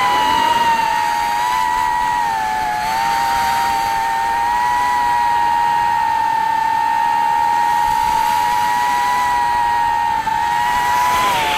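The four brushless motors and DAL 4x4.5x3 tri-blade props of a Tyrant 180 quadcopter, heard from on board, whining steadily and high. Two motors sit at slightly different pitches. The pitch dips a little about two and a half seconds in and again near the end.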